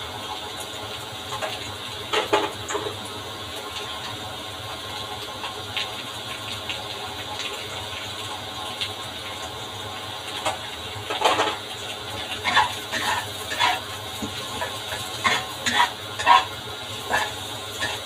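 Black spatula scraping and knocking against a honeycomb nonstick wok as sliced carrots are stir-fried, over a steady low hiss. A couple of knocks come about two seconds in, then quick, repeated stirring strokes from about ten seconds on.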